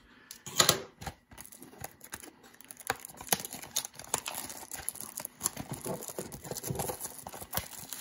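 Cellophane shrink wrap crinkling and crackling as fingers tear it open and peel it off a small cardboard trading-card box, in a dense, irregular run of small crackles.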